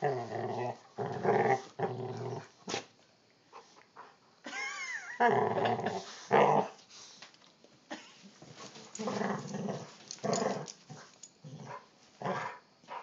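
Two dogs play-fighting, growling in repeated short bursts, with a brief high wavering whine about four and a half seconds in.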